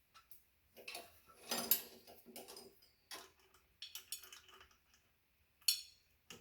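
Irregular light metallic clicks and knocks of e-bike wheel and brake parts being handled, loudest about two seconds in and again near the end.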